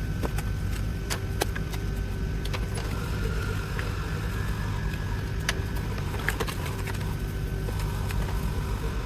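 Scattered light clicks and clinks of hand tools and engine parts during spark plug work on a BMW B58 engine, over a steady low hum.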